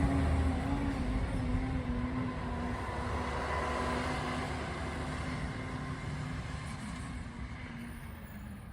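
Garbage truck engine running with a steady drone, fading evenly as the truck drives away.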